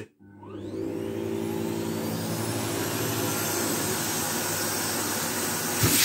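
Philips Marathon FC9205 canister vacuum cleaner switched on, its motor spinning up with a rising whine over about a second, then running steadily with a hum and an airy hiss. This is its normal, unobstructed running sound, sucking well. A short knock comes near the end.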